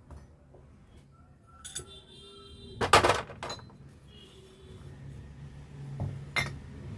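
Metal parts and tools clinking and clattering, with the loudest clatter about three seconds in and smaller clinks before it and near the end.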